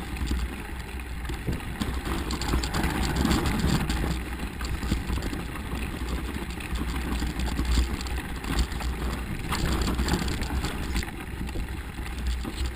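Mountain bikes rolling downhill over packed snow: a steady low wind rumble on the microphone with the hiss and crunch of tyres and small rattles of the bike.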